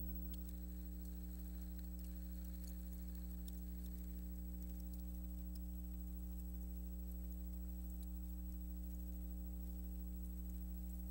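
Steady electrical mains hum with faint scattered ticks and crackle. The footage is silent, so this is only noise from the transfer, not sound from the event.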